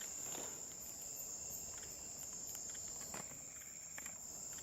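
Steady high-pitched drone of a rainforest insect chorus, faint, with a few soft clicks and rustles.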